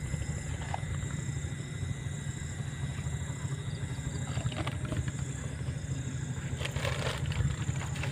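Steady low rumble under a continuous high, thin drone of night insects. A few brief rustles or knocks come about midway and near the end.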